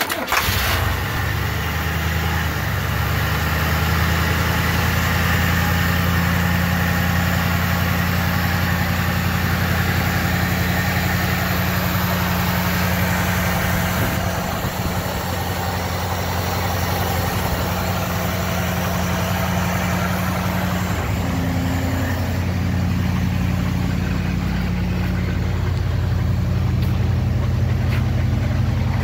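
Buick 430 cubic-inch V8 idling steadily and running smoothly.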